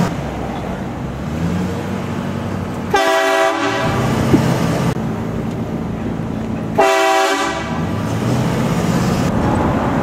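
Truck-mounted train horn on a Ford F-250 Super Duty pickup, blasting twice with a sudden start: once about three seconds in and again near seven seconds, each blast about two seconds long. Between the blasts, the truck's engine and road noise run on, heard from inside the cab.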